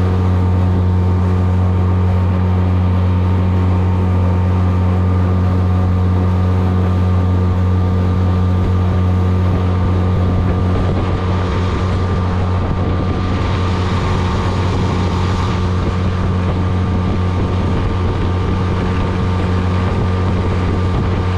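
Small outboard motor pushing an 8-foot jon boat at a steady cruising speed: a constant low drone that holds one pitch, with water and wind noise over it and a little more hiss about thirteen seconds in.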